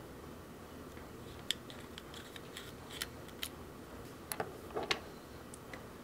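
Faint, scattered clicks and taps of a small precision screwdriver and the tiny retaining screw of an M.2 2230 SSD being worked out of its enclosure board and set down, about seven sharp clicks in all.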